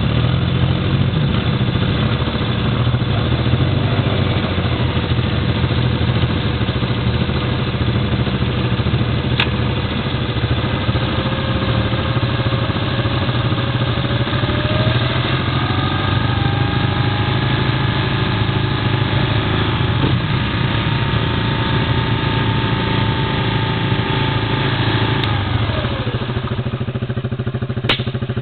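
ATV engines running steadily at low revs while the quads sit almost still in deep mud and water. A thin whine climbs in pitch around the middle and drops back near the end.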